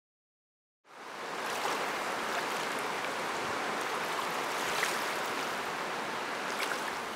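Rushing river water, a steady wash of rapids and broken current. It fades in from silence about a second in.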